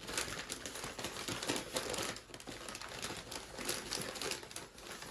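Paper takeout bag crinkling and rustling as a hand rummages inside it, a dense run of quick crackles.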